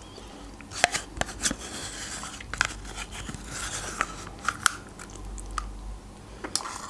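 Close-up eating sounds: lip and mouth sounds as a creamy dessert is taken off a metal spoon, with irregular short clicks of the spoon against a small plastic dessert cup.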